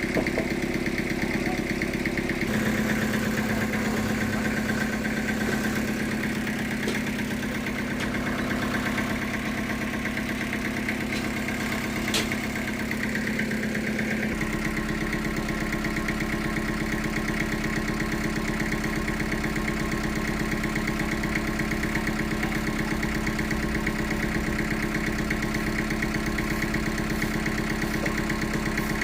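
Engine of sawmill machinery running steadily, its tone shifting about two and a half seconds in and again about halfway through.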